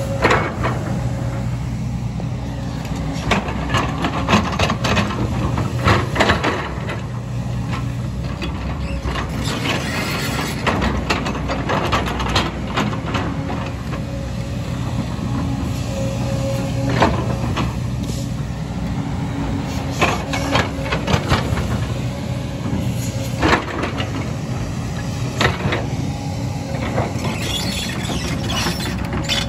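Tracked hydraulic excavator (JCB 225 LC) running steadily while working, with repeated sharp clanks and knocks of the bucket striking and scraping rock and soil.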